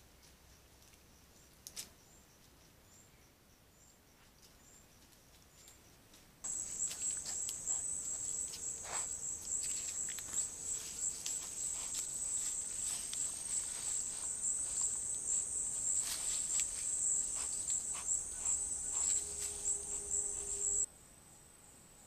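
High-pitched insect trilling, pulsing and steady, that starts abruptly about six seconds in and cuts off suddenly near the end. Under it are the crackles and clicks of peccaries stepping and rooting in dry leaf litter. Before the trilling starts, only faint chirps repeat about once a second.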